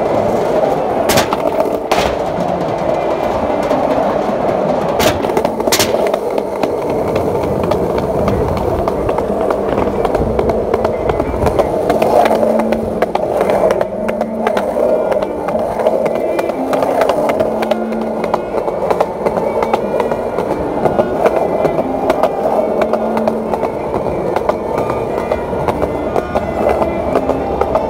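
Skateboard wheels rolling steadily over a concrete path, with a few sharp clacks in the first six seconds. Faint music plays underneath.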